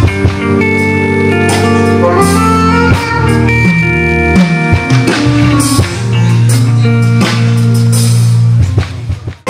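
Instrumental passage of band music, no singing: guitar lines over bass and drums, with a short drop-out near the end.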